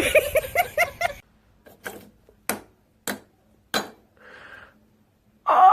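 A voice in quick pulses, then four sharp knocks about 0.6 s apart, a short soft hiss, and a loud cry near the end.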